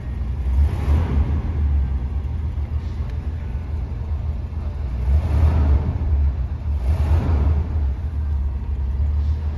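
1981 Cadillac Fleetwood Brougham's throttle-body-injected engine running after a fuel filter change, revved with the accelerator pedal in a few swells: about a second in, around five seconds and around seven seconds. Heard from inside the cabin.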